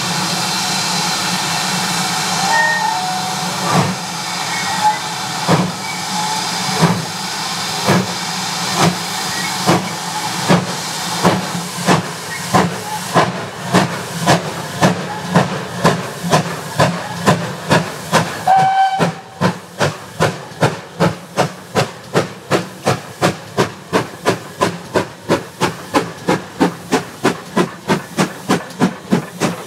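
GWR 5600 class 0-6-2T steam tank engine No. 5643 pulling away with a train. A steady hiss of steam comes first, then exhaust chuffs that quicken from about one to about two a second as it accelerates towards and past the listener. The hiss stops abruptly about two-thirds of the way through, leaving the chuffs.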